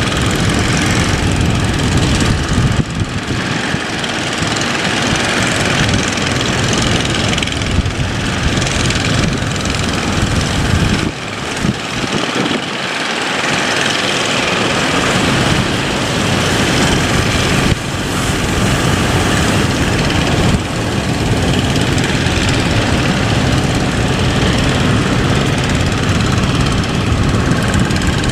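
A boat's engine running under way, mixed with heavy rushing water and wind noise. The low rumble briefly drops away twice.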